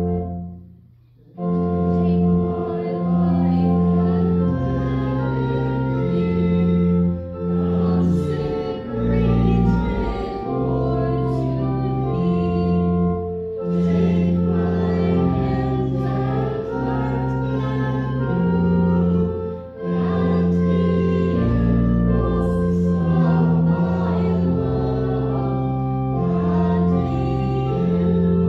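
Church organ playing a hymn in sustained chords that change step by step, with a brief break about a second in before it carries on, and voices singing along.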